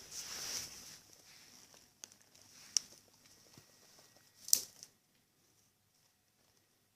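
A cat playing with a chicken bone: a brief rustling scrape at the start, then a few sharp clicks, the loudest about four and a half seconds in.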